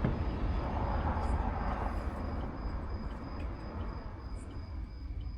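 Outdoor night ambience: a steady low rumble under a constant thin, high-pitched insect drone, with a few faint clicks.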